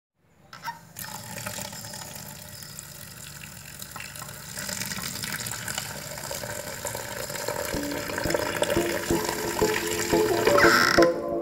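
A stream of water pouring and splashing into a clay cooking pot packed with cut abaralla pieces, growing louder as it goes. Soft background music comes in near the end.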